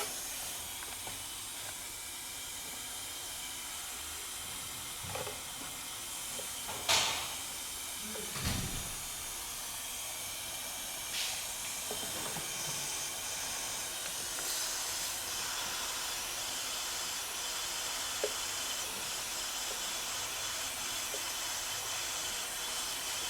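Compressed air hissing steadily out of a leak under the sealing ring of the boost pipe from the turbocharger to the intercooler, while the charge-air system is held under pressure by a pressure-test rig. A few short knocks sound over the hiss, the loudest about seven seconds in.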